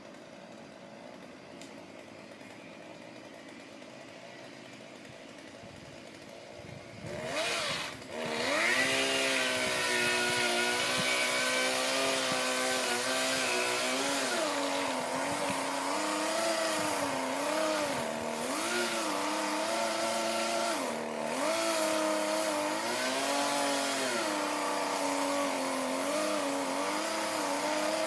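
Chainsaw running quietly at first, then brought up to full speed about seven seconds in and cutting into a dead tree, its pitch repeatedly dipping and recovering as the chain is loaded in the wood.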